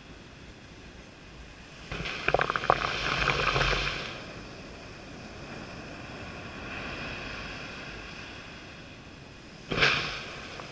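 Surf washing up a sandy beach close to the microphone: a wash of water with crackling, fizzing foam about two seconds in, easing to a steady hiss, then a sudden rush of water near the end as a wave runs over the sand.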